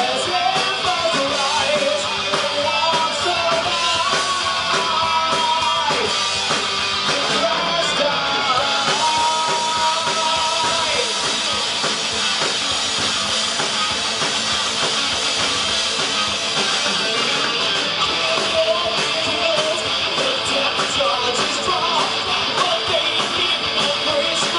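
A heavy metal band playing live: loud electric guitars and drums with a lead singer.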